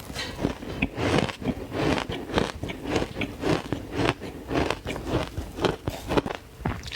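Close-miked bites and crunches of frozen green matcha ice, a rapid run of crisp, powdery crunches several times a second.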